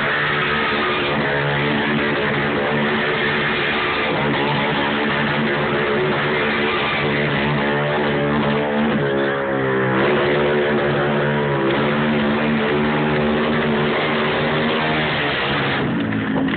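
Motorcycle engine held at high revs through a burnout, the rear tyre spinning against the tarmac; the engine note dips and comes back up about halfway through, then stops near the end as the bike moves off.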